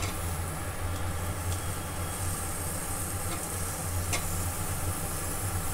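Rice frying in ghee in a steel pot, sizzling faintly as cauliflower florets are stirred in, with a few light scrapes of a steel spoon. A steady low hum sits under it throughout.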